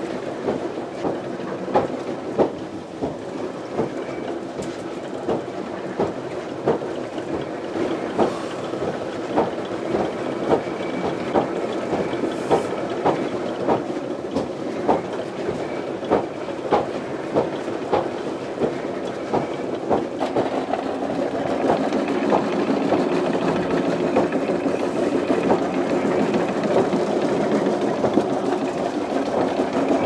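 Water-powered wool carding machine running, its drums and gearing clattering with a regular knock about one and a half times a second as wool is fed in. The clatter grows louder and denser about two-thirds of the way through.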